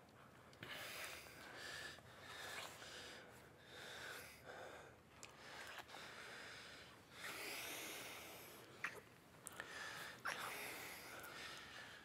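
Two people kissing: breathing through nose and mouth in repeated breaths, with a few sharp wet lip smacks in the second half.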